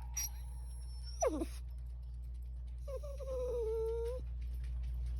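Chihuahua vocalizing: a short cry falling steeply in pitch about a second in, then a longer, held whine falling slightly in pitch, about three seconds in.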